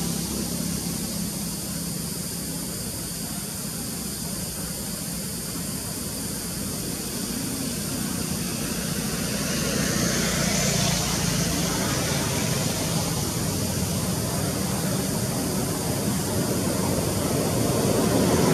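Steady engine noise from a motor vehicle, with a low hum under a wash of noise, growing louder toward the end.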